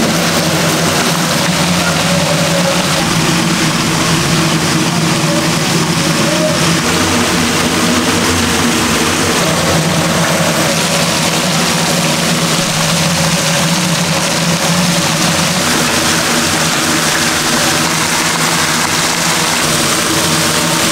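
Steady machine drone with a constant low hum and a rushing hiss over it, unchanging throughout.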